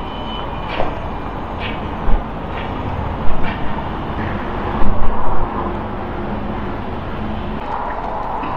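A steady, loud engine-like rumble with a low hum, broken by a few sharp loud knocks about two seconds in and again around the middle.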